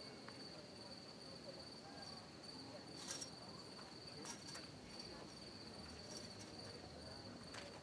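Crickets chirping steadily in a high, even trill, faint, with a couple of short clicks about three and four seconds in.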